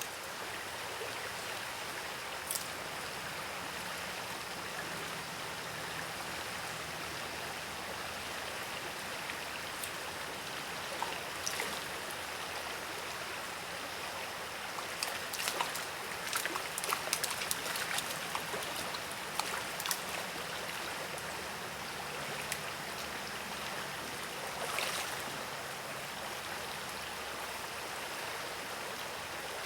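Steady rush of a trout stream's running water, with scattered short clicks and ticks over it, most of them bunched together in the middle.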